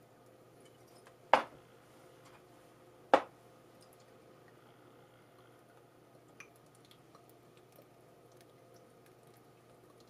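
Two sharp knocks about two seconds apart, over faint dripping and squishing of water soaking into the potting soil of freshly watered herb cuttings, with a few small clicks.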